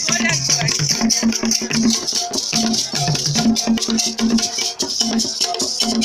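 Drum ensemble playing a fast, steady rhythm: stick-struck barrel drums sound repeating low pitched notes, and a beaded gourd shaker hisses continuously over them.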